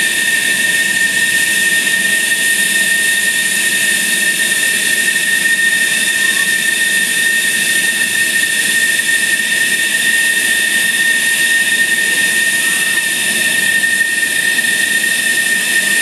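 F-16's single jet engine running steadily at ground idle during pre-flight checks: an even hiss with a steady high-pitched whine.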